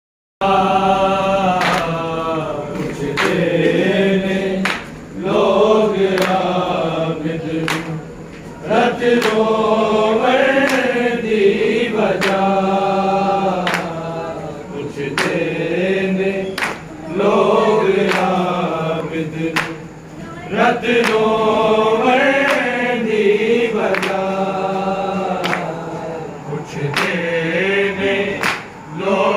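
Men's voices chanting a Punjabi noha (Shia mourning lament) in unison, phrase after phrase with short breaks between lines. Sharp strikes cut through the chanting again and again.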